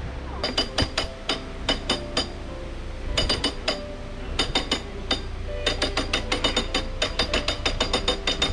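Canal lock paddle gear being wound up with a windlass: the ratchet pawl clicks quickly over the rack's teeth in three runs with short pauses between, over a low steady rumble.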